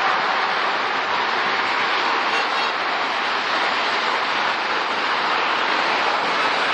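Steady rush of multi-lane freeway traffic passing below: an even wash of tyre and engine noise with no single vehicle standing out.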